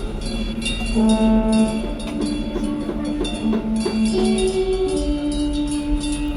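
Orchestral music with slow, long-held brass notes.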